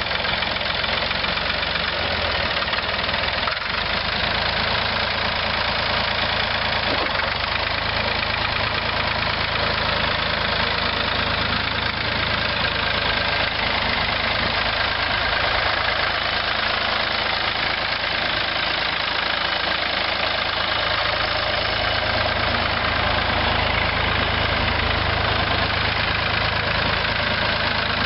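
1973 Ford 3000 tractor's three-cylinder diesel engine running steadily as the tractor is driven around.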